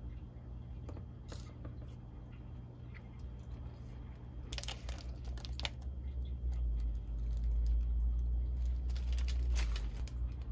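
Paper food wrappers crinkling as they are handled, in two short bursts, about halfway through and again near the end, over a low steady hum.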